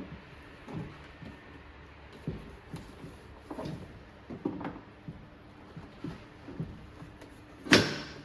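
Parts of a laser lipo beauty machine being handled and fitted together during assembly: a series of light, irregular knocks and clicks, with one loud sharp knock near the end.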